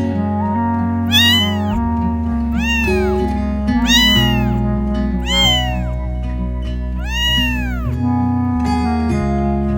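A cat meowing five times, each call rising then falling in pitch, over background music with steady held notes.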